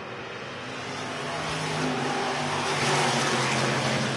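A pack of dirt-track stock cars accelerating together on the restart, engines running and growing steadily louder as the field comes toward the microphone.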